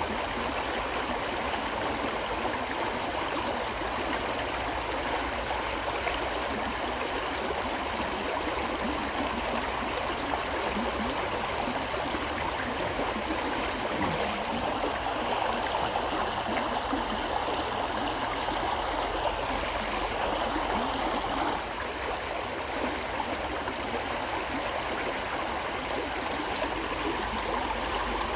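A shallow river flowing steadily, with continuous rushing and gurgling water.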